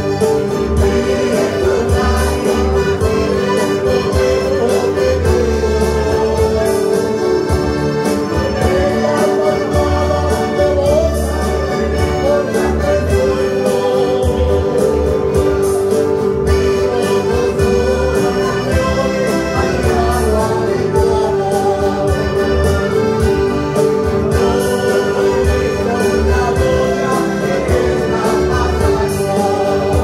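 Church choir and band performing a medley of Spanish praise choruses: sustained melody notes over a steady, pulsing bass beat.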